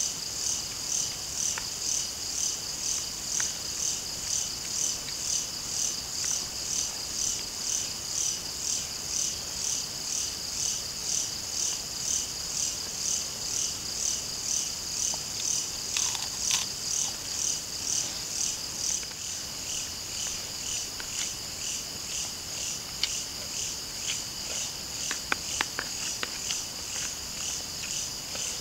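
Night insects chirping in a steady high chorus that pulses about twice a second, with a few light clicks of a spoon on a plate about halfway through and near the end.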